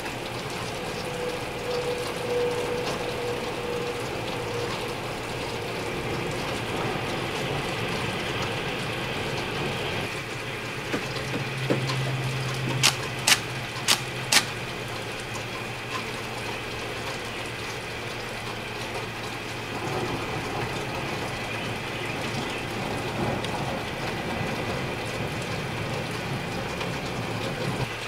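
Steady rushing hiss with a faint hum under it, and four sharp clicks in quick succession about halfway through. No rumble of thunder is heard.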